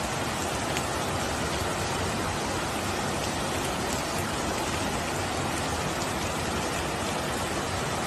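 Fast-flowing muddy floodwater rushing down a street in heavy rain: a steady, even rushing noise with no breaks.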